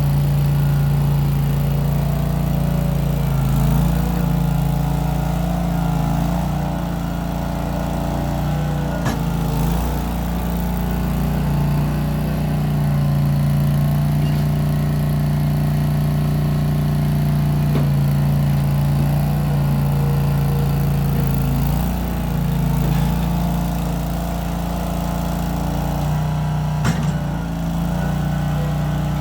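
Case 1816 skid steer's engine running steadily as the machine works, its note dipping and recovering a little under load, with a couple of brief clanks. The exhaust runs out the back through small round mufflers.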